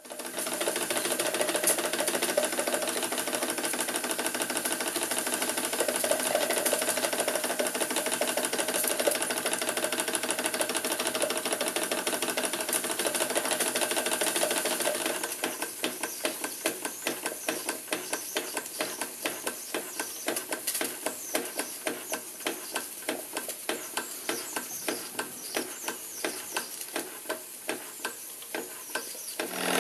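Vintage Doll tinplate live-steam engine running, with a steady rapid hiss and chuff of steam. About halfway through the hiss drops and a regular clicking comes forward, about three strikes a second: the weighted metal hammer of the belt-driven blacksmith figure striking its anvil.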